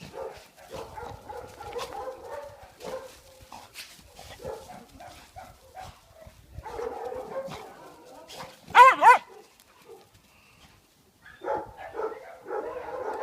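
Dogs barking and yipping in short, overlapping calls. About nine seconds in comes one loud, wavering, high cry, followed by a brief lull before the barking starts again.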